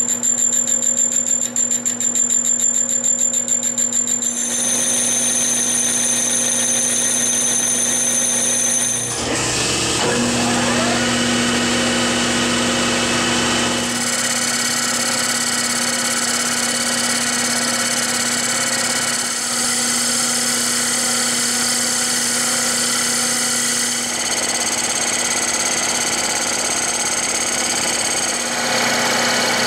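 Metal lathe running with a steady whine. About nine seconds in it dips briefly and rises back up to speed, then runs on turning a disc clamped in its chuck, with stretches of rougher hiss.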